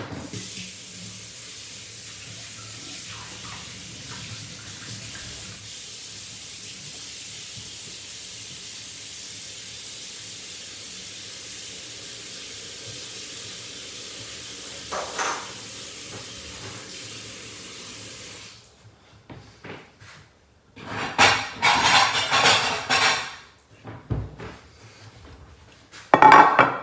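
Kitchen tap running steadily into a sink for about eighteen seconds, then shut off, followed by loud handling noises for a couple of seconds and again near the end.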